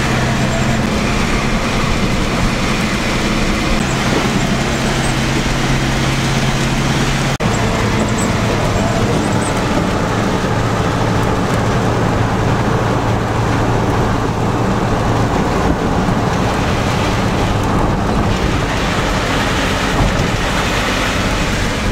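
Steady road and engine noise inside a moving car driving through rain, with a low hum under a continuous hiss. The sound drops out for a moment about seven seconds in.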